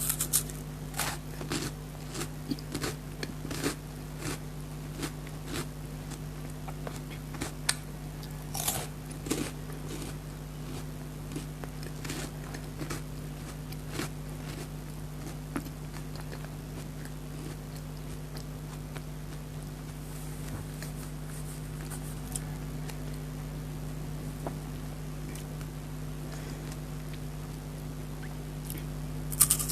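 Crunching bites and chewing of a chocolate-coated wafer bar close to the microphone: short crisp crackles, frequent in the first half, sparser later, with a louder crunch near the end. A steady low hum runs underneath.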